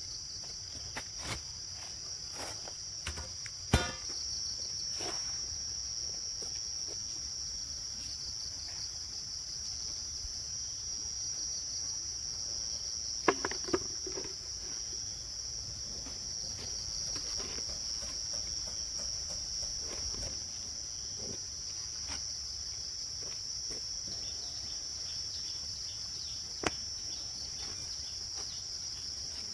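Steady high-pitched chorus of insects, with a few sharp knocks scattered through it.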